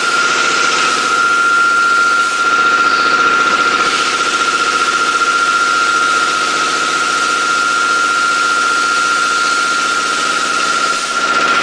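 Stainless-steel commercial garlic peeling machine running through a batch of cloves: a loud steady hiss with a high whine and a lower hum under it. The whine cuts off near the end.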